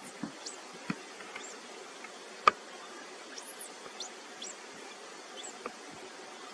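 Faint short high-pitched chirps scattered over a low steady hiss, with a few sharp clicks, the loudest about two and a half seconds in.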